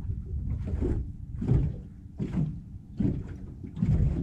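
A steady run of dull thumps, about one every three-quarters of a second, over a low rumble.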